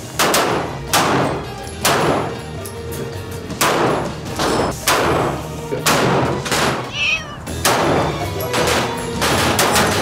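Semi-automatic pistol fired about a dozen times in single shots at irregular spacing, some in quick pairs, over background music. About seven seconds in there is a brief wavering high-pitched cry.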